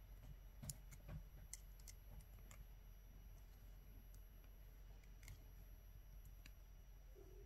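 Near silence with a few faint, scattered clicks of jewelry pliers on wire as a wire loop is wrapped.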